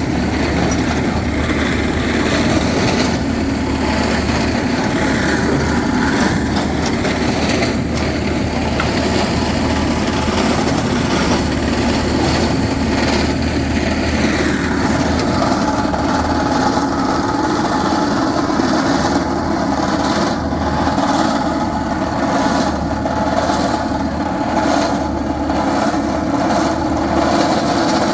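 Rock-drilling rig running steadily: continuous machine noise with a constant low hum, its tone changing about halfway through.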